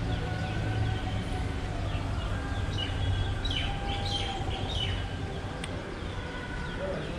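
Birds chirping: many short, falling calls that are busiest about three to five seconds in, over a steady low rumble.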